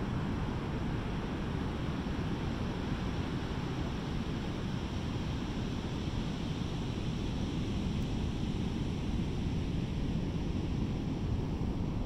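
Pacific Ocean surf: waves breaking offshore in a steady, continuous wash, with wind on the microphone.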